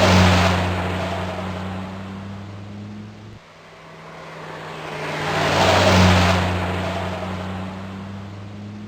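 Car engine passing by with a steady hum: it fades away and cuts off abruptly about three and a half seconds in, then a second pass grows louder to a peak near the middle and fades again.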